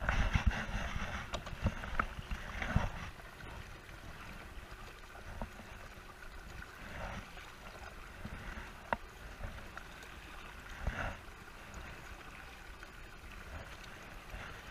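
Water lapping and sloshing against a fishing kayak's hull, with scattered knocks and clicks from the boat. It is busiest in the first three seconds, then settles to a quieter lapping with a few sharp clicks.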